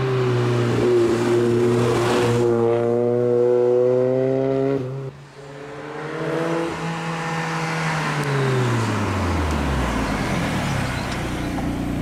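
Ford Sierra RS Cosworth's turbocharged four-cylinder engine accelerating, its pitch rising, with a short break about five seconds in, then rising again before the pitch falls as the car goes by; a lower steady engine rumble follows near the end.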